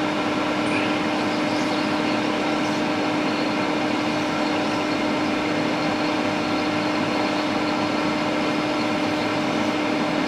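Steady whir of a small electric fan on a repair bench, with a constant hum tone running underneath.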